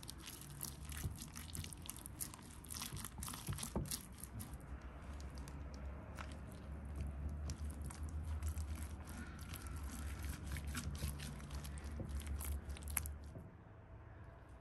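Gloved hands rubbing and smearing a thick seasoning paste over a raw whole lamb carcass: close, wet squelching and rubbing with many small crackles, dying away about a second before the end.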